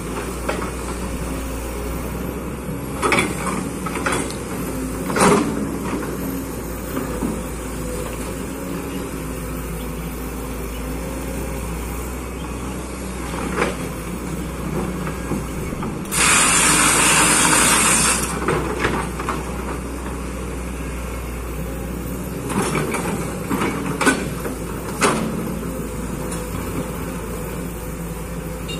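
Kobelco excavator running steadily, with scattered knocks and clanks a few seconds in and again near the end. A loud hiss lasting about two seconds comes just past the middle.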